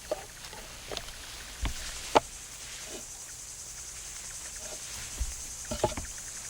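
Steady insect chirring with a few sharp clicks and knocks scattered through it, the loudest about two seconds in.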